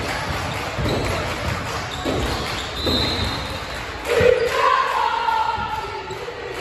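Basketball bouncing on a hardwood gym floor as it is dribbled, a series of knocks in the hall's echo. From about four seconds in, a voice calls out in a long held shout.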